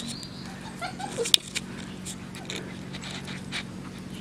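Puppies play-fighting: scuffling and sharp clicks on gravel and dry leaves, with a few brief, faint whimpers.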